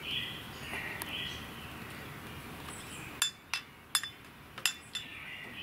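A quick run of about five light clinks of glass and plastic about three seconds in, as a fly vial and tubing are handled against a glass flask. Birds chirp in the background.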